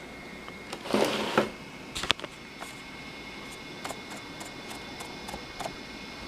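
Handling noise over a steady faint hiss with a thin high tone: a brief rustle about a second in, a sharp click about two seconds in, then a few faint ticks.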